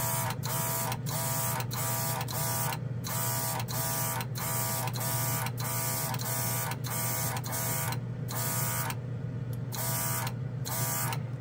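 A small battery-powered, low-pressure air compressor runs with a steady hum while a Gaahleri Ace airbrush sprays primer. The spray comes in short hissing pulses, about two a second, with brief breaks as the trigger is let off.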